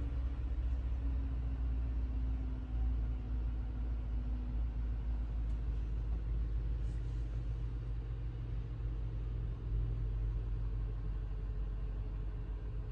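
Toyota Sequoia's 5.7L i-Force V8 idling, a steady low rumble heard from inside the cabin.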